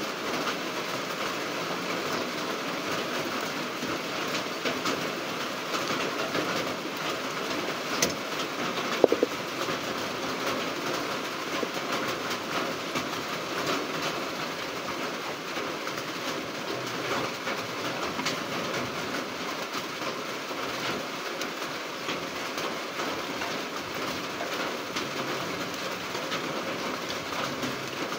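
Steady rain, with a sharp click about eight seconds in and a couple of knocks a second later.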